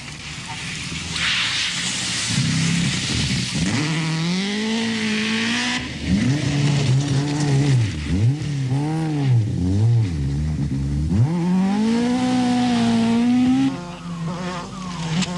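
Rally car engines revving hard on gravel stages, the pitch climbing and then dropping sharply several times as the drivers lift and change gear, with a hiss of gravel and tyres in the first few seconds.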